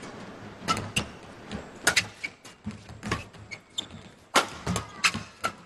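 Badminton rally: rackets striking the shuttlecock in a quick, irregular run of about eight sharp cracks, over the low hum of a sports hall.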